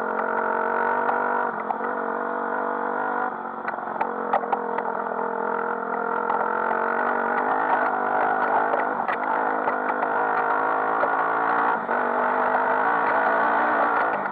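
Enduro dirt bike's engine heard from on board, running under steady throttle. Its pitch and level dip and pick up again a few times with changes of throttle or gear, and a few sharp knocks come through.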